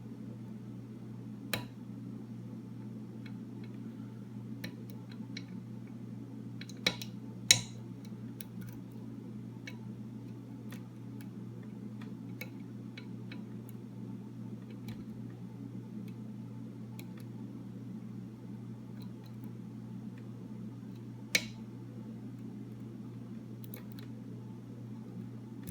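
Lock picking on a Master Lock No. 3 padlock: faint metallic ticks and scrapes from the pick and tension wrench working the pins, with a few sharper clicks, two of them close together about seven seconds in. A steady low hum runs underneath.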